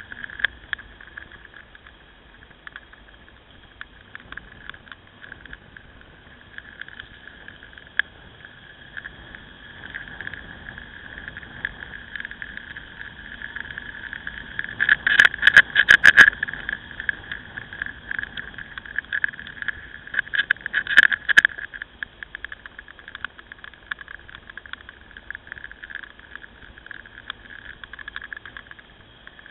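Muffled riding noise on a motorcycle-mounted camera: a steady rush with crackles and rattles, louder for a couple of seconds about halfway through and again briefly about two-thirds in.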